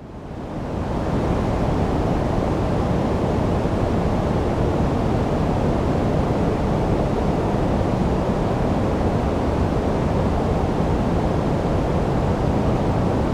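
Steady synthetic sleep noise, deep-toned rather than a flat white hiss, with its weight in the low range. It fades in over the first second, then holds an even level.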